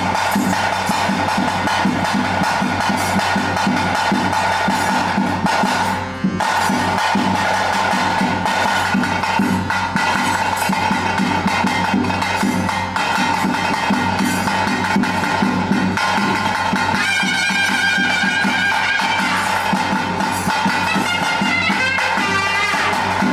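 Traditional drums playing fast under a steady held note, with a high wavering melody coming in about seventeen seconds in and again near the end: ritual music for a Panjurli kola.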